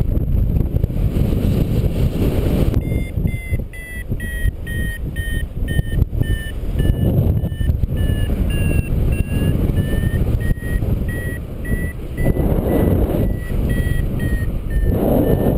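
Paragliding variometer beeping, a steady series of short high beeps, about two or three a second, starting about three seconds in, their pitch wavering slightly; this beeping is the vario's climb tone, the sign that the glider is going up in rising air. Heavy wind buffets the microphone throughout, gusting louder near the end.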